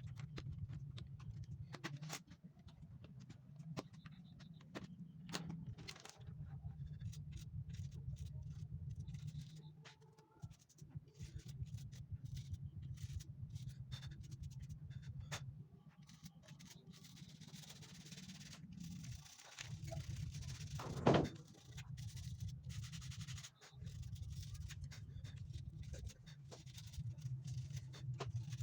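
Rubbing and scraping on a computer keyboard as it is cleaned with a pen and cloth, with many light clicks throughout and one louder knock about three-quarters of the way through.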